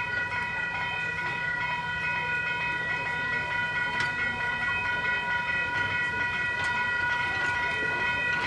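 Railroad crossing warning bell ringing steadily as a tourist train's open passenger cars roll past, with a low rumble of the cars and a few faint wheel clicks.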